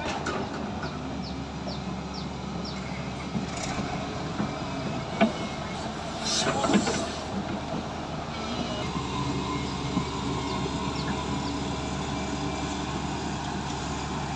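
SANY SY205C crawler excavator's diesel engine running steadily, with a few sharp knocks, the loudest about five seconds in and a short cluster a second or two later.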